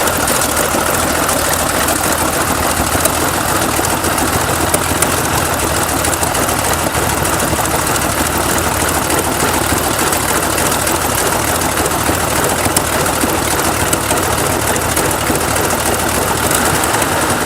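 A large engine running steadily and loudly, with a dense, even mechanical clatter. It cuts off abruptly at the end.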